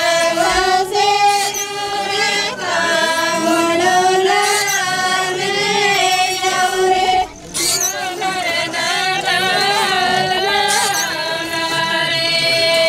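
A group of Korku women singing a dolar geet, a traditional folk song, together in one melody with long held notes, breaking off briefly for breath about seven seconds in.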